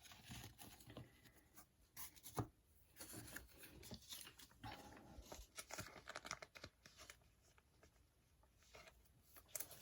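Faint rustling and light clicks of trading cards being handled and shuffled, with one sharper tap about two and a half seconds in.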